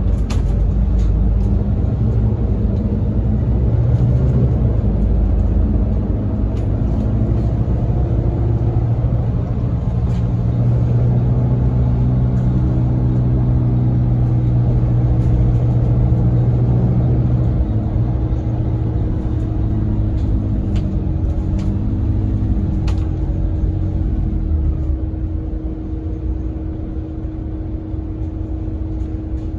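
Volvo B7RLE bus's rear-mounted six-cylinder diesel engine and drivetrain heard from inside the passenger cabin while driving, the engine note changing pitch several times. From about halfway a steady higher hum holds, with occasional light rattles, and the sound eases near the end.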